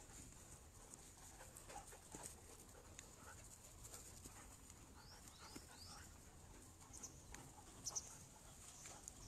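Faint sounds of standard poodles playing on grass: light scuffles and scattered soft ticks, with three quick rising high chirps about five seconds in and a brief louder sound near the end.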